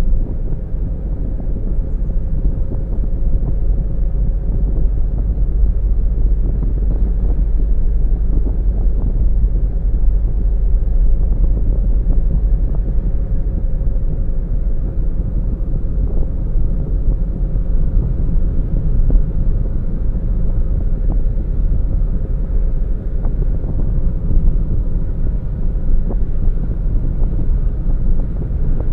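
A car driving at a steady pace, with a continuous low rumble of engine and tyre noise heard from inside the car and a faint steady whine above it.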